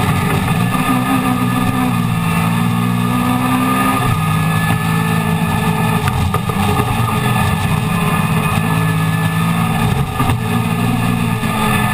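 Classic Mini race car's A-series four-cylinder engine heard from inside the cockpit, revving hard and climbing in pitch, with a sharp drop in revs at a gear change about four seconds in and a brief lift about ten seconds in.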